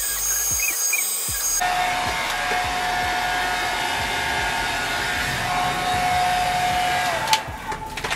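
Handheld hair dryer blowing, a steady rush of air over a motor hum that grows fuller about a second and a half in. Near the end it is switched off: the hum drops in pitch as the motor winds down, followed by a click.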